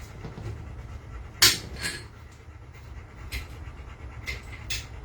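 A dog panting close by, with a few sharp clicks and knocks. The loudest knock comes about one and a half seconds in.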